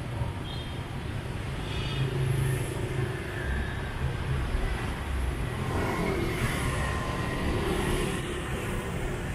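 Street traffic: motorbikes and cars passing on a busy city road, a steady engine and tyre noise that swells as vehicles go by.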